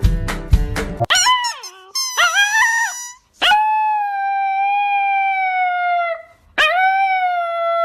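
Strummed guitar music for about a second, then a husky-type dog howls: a few short wavering yowls, followed by two long howls, each held at a steady pitch and sinking a little at the end.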